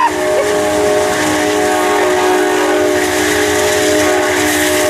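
Diesel locomotive air horn held in one long, steady chord over the rolling noise of a passing passenger train.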